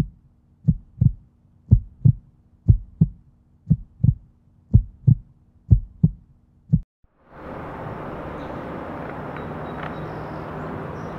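Heartbeat sound effect: low paired thumps, about one pair a second, over a faint steady hum, stopping about seven seconds in. After that comes a steady outdoor background hiss.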